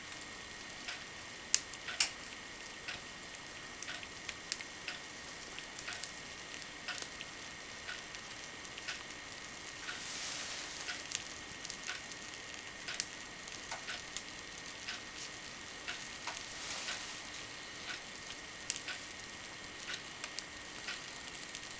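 Home-made hot-wire foam cutter at work, its wire being drawn slowly through a styrofoam block by a pulley-and-lever rig: light irregular ticking about twice a second over a faint steady high tone, with soft sizzling swells about ten and sixteen seconds in.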